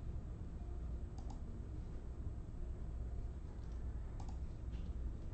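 A few light, sharp clicks, some in quick pairs, over a steady low hum.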